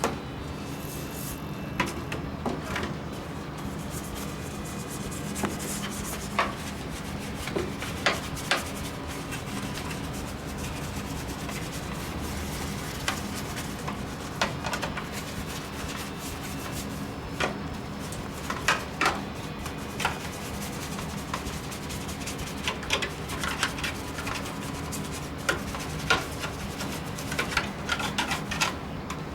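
Paint brush scrubbing alkaline cleaner into the plastic parts of a disassembled air conditioner: irregular scratchy rubbing strokes with small knocks, over a steady low hum.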